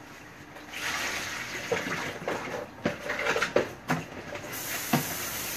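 Kitchen clatter: a rushing noise with several sharp knocks and clinks of pots or utensils, and a steady hiss that comes in about two-thirds of the way through.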